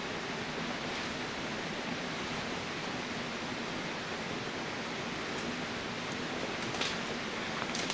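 Steady hiss with a faint low hum underneath, and a few faint crackles near the end.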